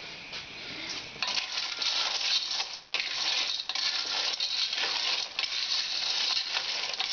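Periwinkle shells clattering and clinking against a stainless steel pot as they are stirred with a wooden spoon while cooking, a dense rattle that starts about a second in and breaks off briefly about three seconds in.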